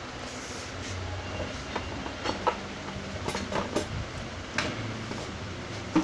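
Hard plastic tricycle seat being handled and turned over, giving a string of light knocks and clicks, the sharpest near the end, over a steady low hum.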